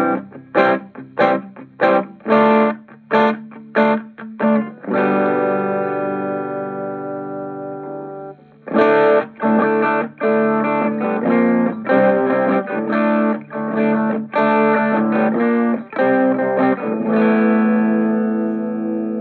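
Les Paul electric guitar with a humbucker pickup, played through an Orange Micro Terror hybrid amp (valve preamp, solid-state power stage) with gain and tone at noon, giving a distorted tone. It plays short chopped chords, lets one chord ring out about five seconds in, returns to choppy rhythmic chords, and holds a final chord near the end.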